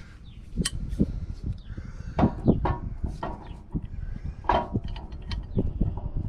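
Pipe wrench gripping and turning the end cap of a Ford 770B loader's hydraulic lift cylinder: scattered metal clicks, knocks and scrapes as the cap rotates and the stiff retaining-ring wire is worked out of its groove.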